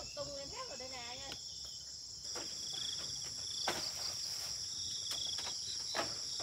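Insects chirring steadily, a high continuous drone with a pulsing trill a little lower, swelling louder about two seconds in. A wavering voice is heard briefly near the start, and a couple of sharp knocks come later.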